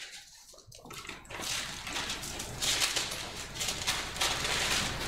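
Bible pages being turned, a run of crisp paper rustles that starts about a second in and goes on with many small crackles.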